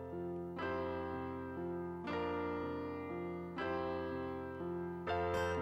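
Keyboard playing slow sustained chords, a new chord struck about every one and a half seconds, as an instrumental introduction.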